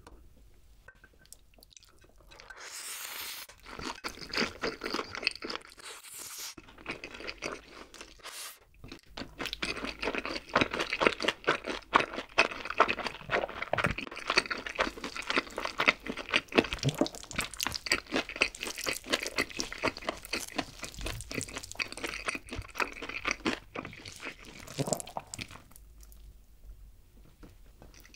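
Close-miked eating sounds of a person with Jjapaghetti black bean noodles: two short slurps a few seconds in, then a long stretch of rapid, wet chewing that eases off near the end.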